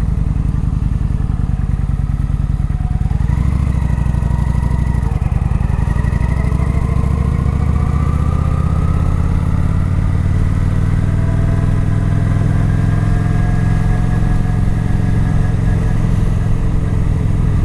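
A Kawasaki Vulcan 900 Classic's V-twin engine on its stock exhaust, heard from inside the rider's helmet while riding. The engine's pitch rises, drops back once about five seconds in, then climbs slowly and steadily as the bike gathers speed.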